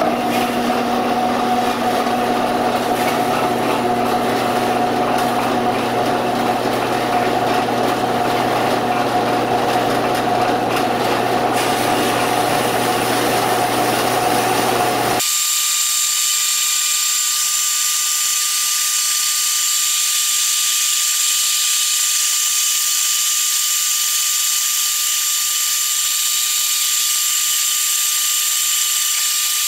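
Horizontal metal-cutting band saw running, its blade cutting through a 2.5-inch 1144 stress-proof steel round bar with a steady mechanical whir. About halfway through, the sound changes abruptly from a fuller, lower running noise to a thinner, higher-pitched whine with a steady high tone.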